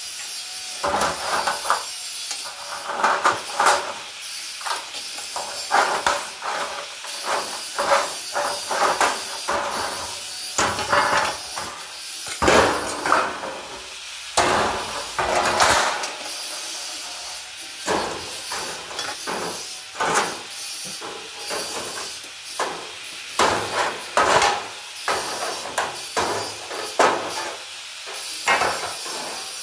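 Thin steel sheet being handled and knocked: irregular metallic clanks and wobbling rattles, sometimes several in quick succession.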